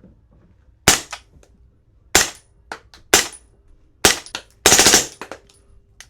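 Suppressed 9mm Springfield Kuna, fitted with a Titrex 360 Ti suppressor, firing four single shots about a second apart, then a rapid string of about eight shots from its forced-reset trigger.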